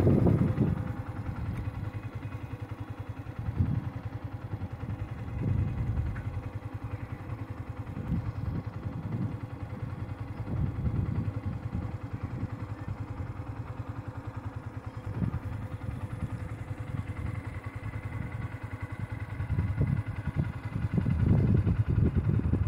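A small vehicle's engine running steadily while riding along a road, with wind gusting on the microphone. The gusts are strongest at the start and again near the end.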